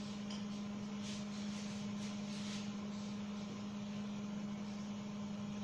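A steady low hum, with faint strokes of a marker drawing on a whiteboard about a second in and again near the middle.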